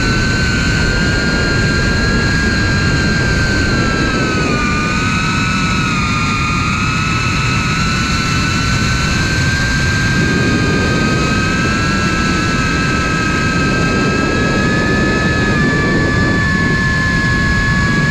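FPV quadcopter's brushless motors and propellers whining in flight, heard from the camera carried on the drone: several close tones that drift slowly up and down in pitch with the throttle, over a steady noisy rush.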